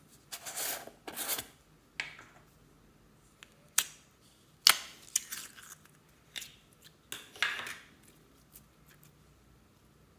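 Plastic tub of gold metallic putty slime being twisted open, with two scraping rasps from the lid. Then come sharp plastic clicks and a further rasp as the putty is pulled out of the tub and handled.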